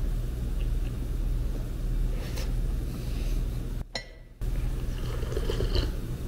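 A steady low rumble with a few faint clinks of tableware, bowls and chopsticks. The sound breaks off for about half a second around four seconds in.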